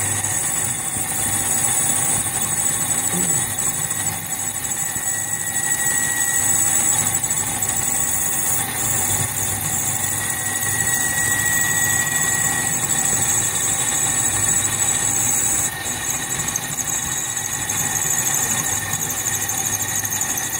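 1940s Sheldon engine lathe running steadily with the chuck spinning while a parting tool is fed in on the cross feed to cut off the workpiece. A thin squeal from the cut comes and goes over the machine's hum.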